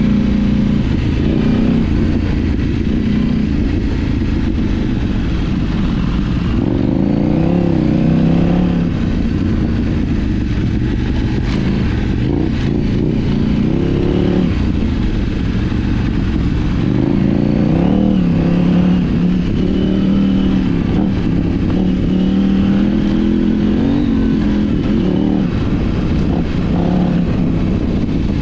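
KTM 790 Adventure R's 799 cc parallel-twin engine, fitted with an Arrow titanium slip-on exhaust, running under way on a dirt trail, its revs rising and falling with the throttle. A few short clicks come about twelve seconds in.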